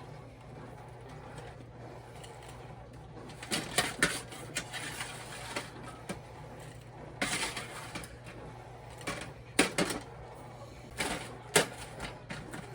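Scattered clicks and clatter of kitchen utensils against plates and a baking pan while fries are served out, loudest in short clusters a few seconds apart, over a low steady hum.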